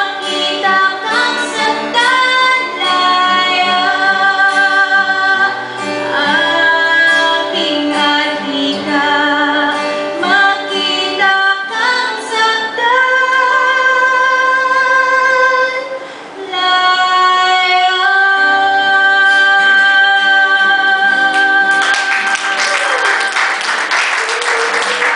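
A woman sings solo into a microphone, accompanied by an acoustic guitar. Near the end she holds one long, wavering note, and applause breaks out over it.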